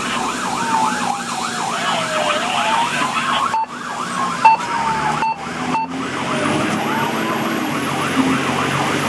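Fire engine sirens on the move: a fast yelp and a slower rising and falling wail sound together over the steady drone of the engine, heard from inside the cab.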